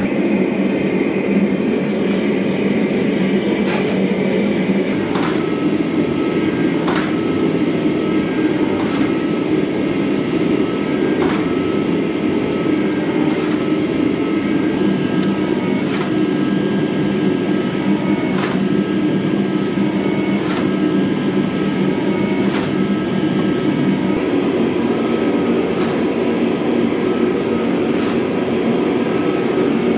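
A gas forge burner and a hydraulic forging press run together with a loud steady roar and hum. From about five seconds in, a sharp click or knock comes about every two seconds as the press cycles on hot steel, and a thin higher tone sits between the knocks.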